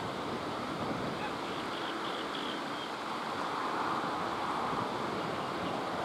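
Steady rushing outdoor background noise, with a short run of faint, high bird chirps about one and a half to two and a half seconds in.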